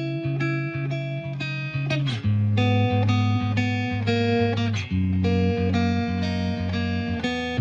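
Background music led by plucked guitar, with notes and chords changing about every half second over a bass line that gets louder about two seconds in.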